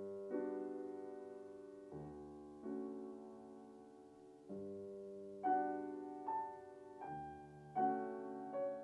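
Yamaha grand piano being played: slow chords ring out and fade, each followed by a new one. About halfway through, higher melody notes come in faster and louder.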